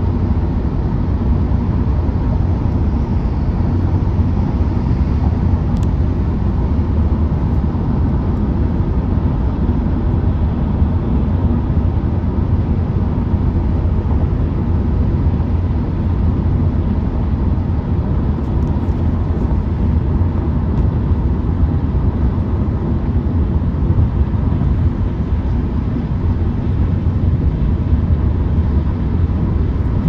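Road noise inside a car cabin driving at freeway speed: a steady, loud, low rumble.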